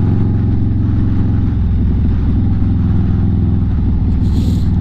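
Harley-Davidson Street Bob's Milwaukee-Eight 114 V-twin, built to Stage 2 with an S&S 475 cam, running steadily at light throttle while cruising at about 40 mph. The sound is heard from the rider's seat.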